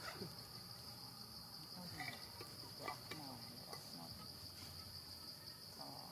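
Steady, high-pitched drone of crickets or similar insects, unbroken throughout, with a few faint short chirps and squeaks scattered through the middle.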